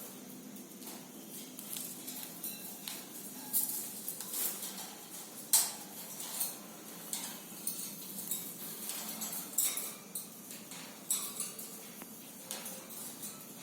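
A parrot working at a homemade toy with its beak: irregular clicks, taps and clattering, with a few louder knocks.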